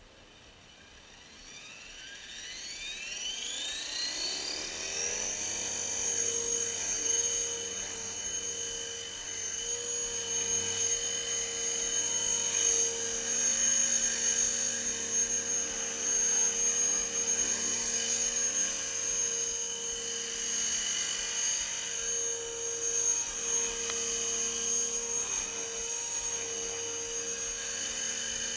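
Gaui X3 electric radio-controlled helicopter spooling up: the motor and gear whine rises steadily in pitch over the first five seconds or so. It then settles into a steady high whine with rotor buzz at constant head speed as the model flies.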